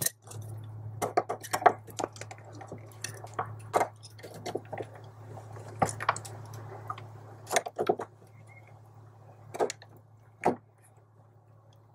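Irregular small metallic clicks and clinks from pliers gripping and working a cotter pin out of the clutch pedal's clevis pin, over a steady low hum.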